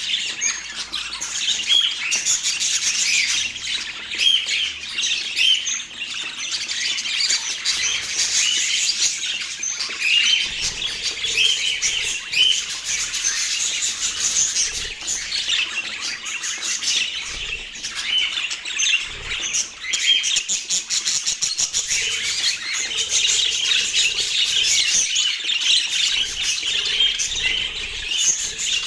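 A group of budgerigars chattering and warbling, with many quick overlapping chirps and squawks that never pause.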